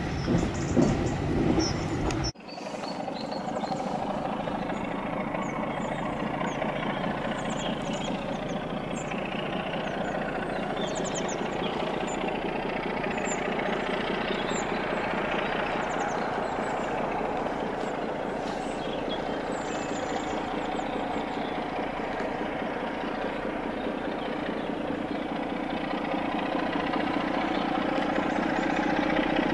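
A passing train's loud rumble cuts off abruptly about two seconds in. It is followed by a diesel locomotive's engine running steadily in the distance, growing slowly louder as the locomotive approaches near the end.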